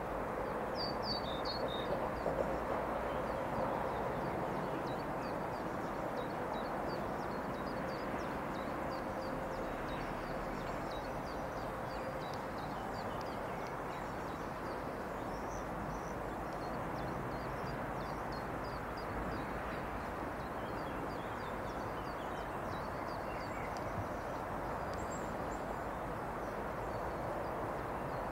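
Steady outdoor background noise with small birds chirping faintly and repeatedly over it.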